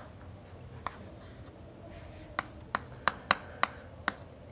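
Chalk writing on a blackboard: a series of about seven sharp taps as the chalk strikes the board for letters, commas and brackets, with a brief scrape about two seconds in.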